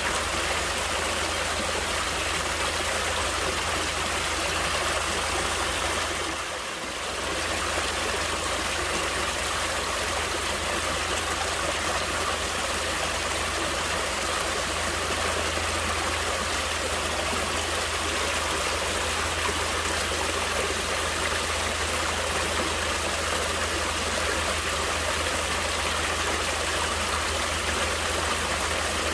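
Stream water flowing and splashing steadily, a continuous rushing that dips briefly about six or seven seconds in.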